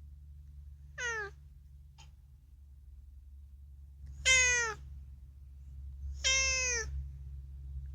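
Domestic cat meowing three times: a short meow about a second in, then two louder, longer meows around four and six seconds in, each falling in pitch at the end, over a low steady hum.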